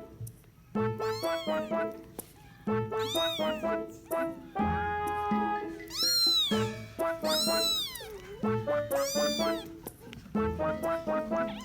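Cat meows, rising then falling in pitch, repeated every second or two in time with a bouncy music track of short stepped notes.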